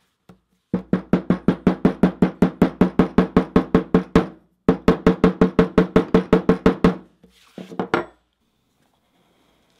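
A steel hammer tapping rapidly along the saddle-stitched seam of vegetable-tanned leather on a plywood bench to tap down the stitching. The taps are even, about six a second, in two runs with a short break near the middle, each with a brief ringing tone. A few softer knocks follow near the end.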